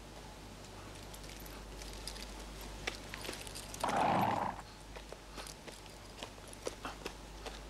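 Horse hooves stepping at a walk in irregular clops, with one short, louder breathy burst about four seconds in.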